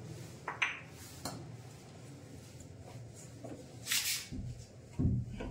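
Metal door hasp and padlock being knocked and handled in an attempt to break the lock: a few sharp clacks about half a second in and again just after a second, a longer rattling scrape about four seconds in, and two more knocks near the end.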